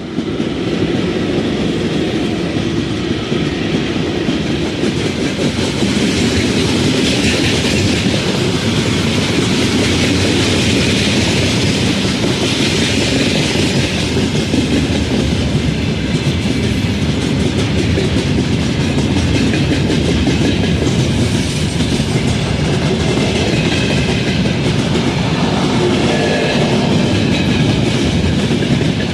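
Freight train behind a VL11 electric locomotive passing close by at speed, the freight wagons' wheels clattering steadily over the rail joints in a continuous loud clickety-clack.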